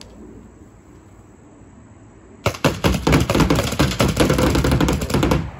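Empire Mini GS electronic paintball marker firing a rapid full-auto string of shots, starting about two and a half seconds in and lasting about three seconds.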